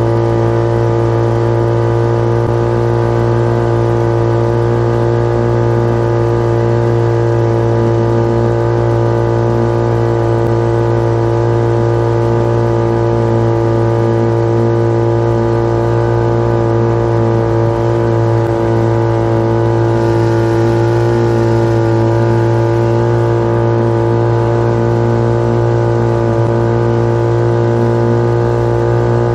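1947 Johnson TD-20 5 hp two-cylinder two-stroke outboard motor running under way at a steady throttle, its pitch holding constant.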